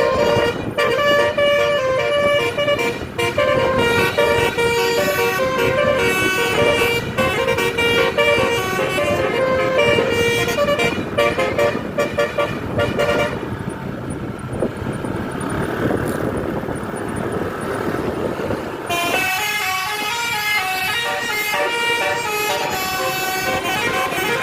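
Tour bus telolet horn playing a quick melody of stepped notes. The horn stops about thirteen seconds in, leaving several seconds of rushing noise, then plays its tune again near the end.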